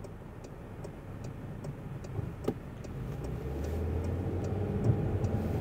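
A car's turn-signal indicator ticking steadily, about two and a half clicks a second, over the low engine and road noise heard inside the cabin. The engine and road noise grow louder from about three seconds in, and there is one soft knock near the middle.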